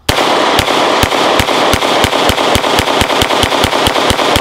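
AREX Rex Zero 1CP compact 9mm semi-automatic pistol fired in a rapid, steady string of shots, about three to four a second, each ringing on into the next.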